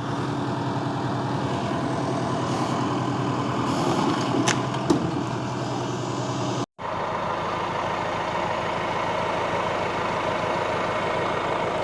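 Tractor engine running steadily, with a short sharp click about four and a half seconds in. The sound cuts out for a moment a little after halfway, then carries on the same.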